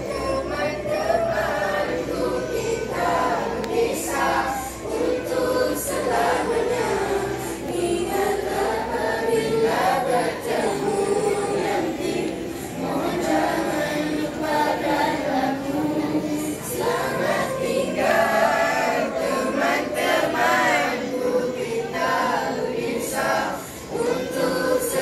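A group of schoolchildren singing together as a choir, one continuous song.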